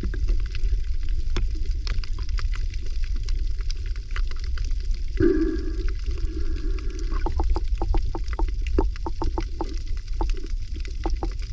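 Underwater sound: a steady low rumble of water moving against the camera. About five seconds in comes a held tonal moan of about a second and a half, followed by a fast run of clicks lasting about three seconds.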